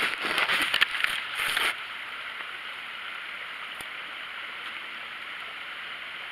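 A small mountain creek gurgling steadily. During the first second and a half, knocks and scuffs of the camera being set down and handled, louder than the creek.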